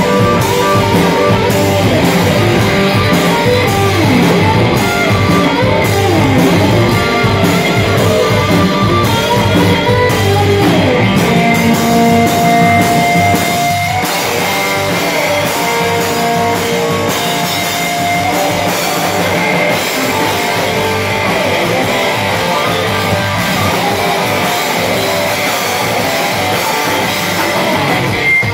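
A rock band playing live: electric guitar with long held and sliding lead notes over a drum kit, loud and steady.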